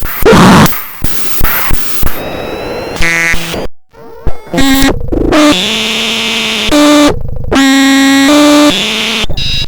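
Home-built DIY synthesizer making harsh electronic noise: loud bursts of hiss, then buzzy held tones that jump in pitch and cut in and out abruptly, with a brief drop-out about four seconds in.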